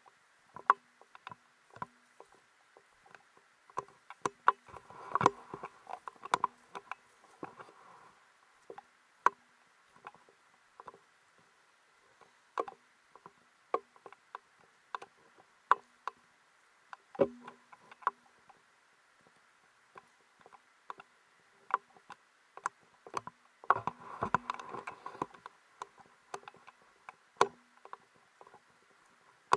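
Irregular clicks and knocks from a body-worn camera and gear jostling as the wearer walks over sand and through beach shrubs. There are denser spells of crunching and rustling about five seconds in and again near the end.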